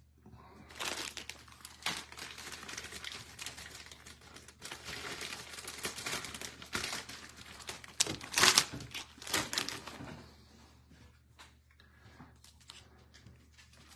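Plastic packaging crinkling and rustling as it is handled, in dense irregular crackles for about nine seconds, loudest shortly after the middle, then dying down to a few faint clicks.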